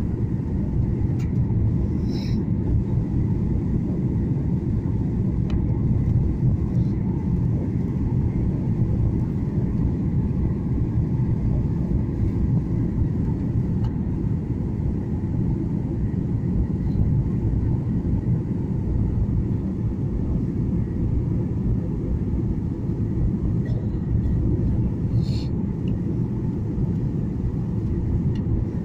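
Steady airliner cabin noise during the descent to land: a deep, even rumble of engines and airflow heard from inside the cabin.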